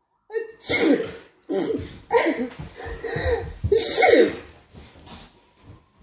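A person sneezing and coughing, about five loud fits in quick succession that grow weaker and die away near the end.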